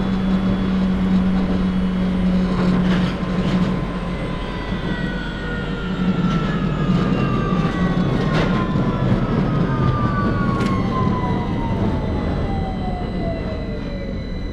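Victoria line 2009 stock train running in the tunnel, its traction motors whining in several tones that fall steadily in pitch through the second half as the train slows, over a constant rumble of wheels on rail with scattered sharp clicks.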